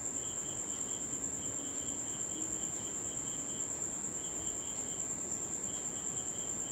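Insects chirping: a steady high trill, with runs of quick chirps at about five a second breaking in and out lower down.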